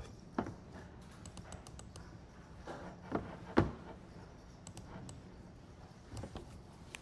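Scattered clicks and taps of a computer keyboard and mouse, with a louder knock about three and a half seconds in.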